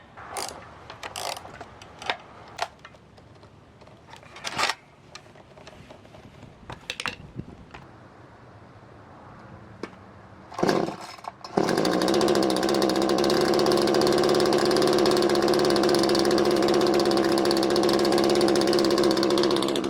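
Chainsaw being handled, with scattered clicks and knocks as its side cover goes back on; about halfway through, the saw starts and then runs at a steady speed.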